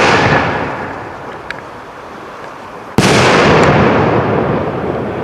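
Fireworks display: the sound cuts in loud and fades over a couple of seconds, then a sharp, loud bang about three seconds in is followed by a long fading rumble, with a few small pops in between.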